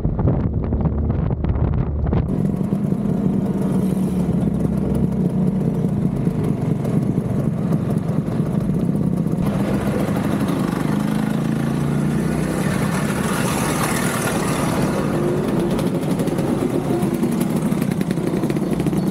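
Classic two-stroke scooter engines running while riding in a group. The sound changes suddenly about two seconds and about nine seconds in.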